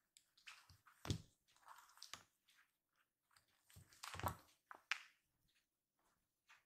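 Kittens play-fighting: soft scuffles, scratches and taps of paws, claws and bodies on the cushioned floor mat and rush-soled slippers. Two louder thumps come about a second in and about four seconds in.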